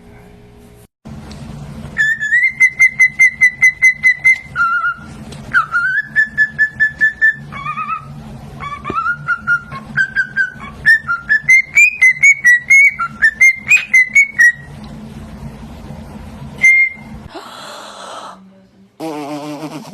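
Pet parrot whistling: a fast run of short repeated notes at one pitch, then a wandering whistled tune that stops about two-thirds of the way through, over a low steady hum.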